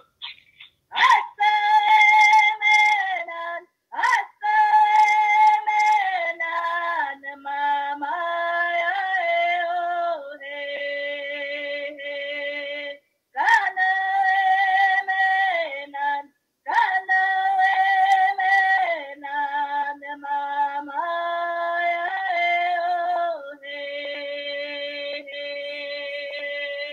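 A woman singing alone without accompaniment: long phrases of held notes that step downward in pitch, with short breaks between phrases. The voice comes through a video call's audio.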